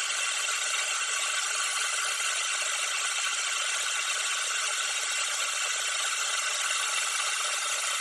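Metal lathe running, its chuck spinning a metal bar as the tool turns it down; a steady, even mechanical noise that keeps the same pace throughout.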